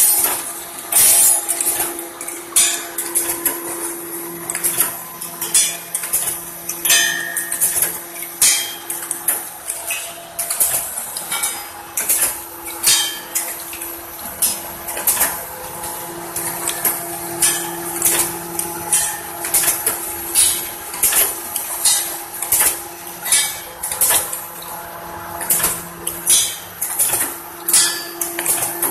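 Automatic aluminium toothpaste-tube sealing machine running, with repeated metallic clanks and clinks about once a second over a steady motor hum.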